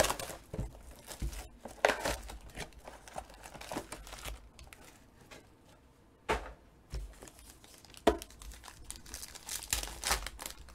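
Clear plastic shrink-wrap crinkling and tearing as it is pulled off a trading card box, in irregular rustles and short crackles. Near the end a foil card pack is torn open.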